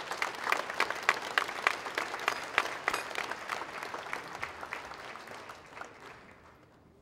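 Audience applauding, the clapping fading out over the last couple of seconds.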